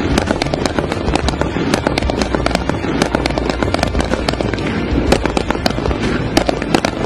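Rapid, overlapping rifle fire: many sharp shots a second crackling on without a break, as in a training firefight.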